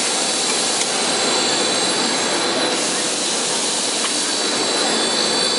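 Aluminum-plastic composite pipe extrusion line running: a steady machine noise with an even hiss and a faint high whine.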